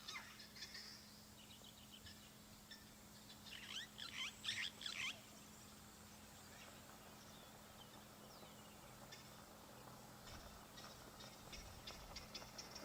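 Helmeted guineafowls giving harsh, rattling alarm calls at a distance. The calls come in one loud burst of about a second and a half, roughly four seconds in, with fainter calls scattered around it.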